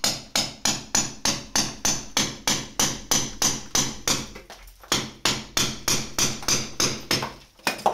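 Hammer striking a hand chisel to chip plaster off a wall: steady, evenly spaced blows about three a second, with a brief pause about midway.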